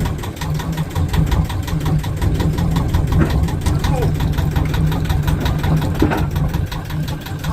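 Yanmar marine diesel engine running steadily at low revs in gear, driving the sail drive, with an even rapid clatter of its firing strokes.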